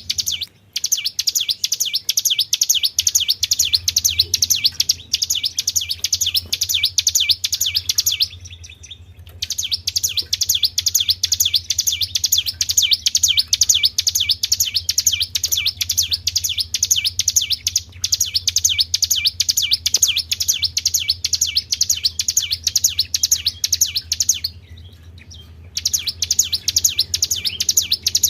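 Recorded song of a tribel bird: a fast, unbroken string of high chirps, played as a lure call. It breaks off briefly about eight seconds in and again about twenty-four seconds in, over a low steady hum.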